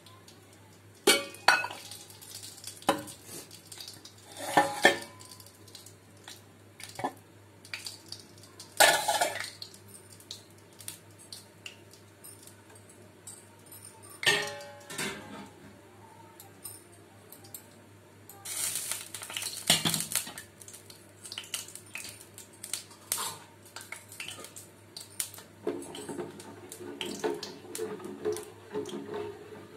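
Steel kitchen pots, bowls and spoons clattering as they are handled: scattered knocks and clinks, with a short rushing noise a little past the middle.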